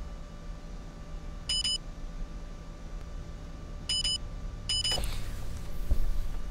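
Three short, high electronic beeps, like a monitoring device's alert tone. The first two are spaced about two and a half seconds apart and the last two come close together. A soft rustle runs through the last second or so.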